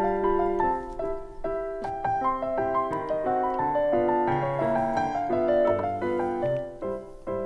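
Background music: a light piano tune of quick, overlapping notes.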